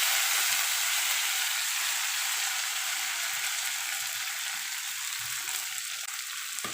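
Thuthi (Indian mallow) leaves sizzling in hot oil with tempered spices in a kadai, just dropped in. A loud, even hiss that slowly dies down.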